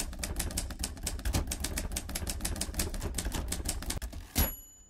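Typewriter sound effect: a rapid run of key clacks, about eight to ten a second. Near the end comes one stronger strike and a short high ring like a carriage-return bell.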